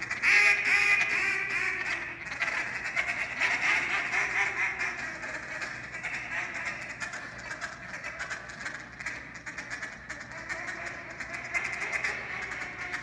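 Handheld duck call blown in a contest calling routine: a fast, continuous run of quacks and chatter. It is loudest in the first second or so and eases off after.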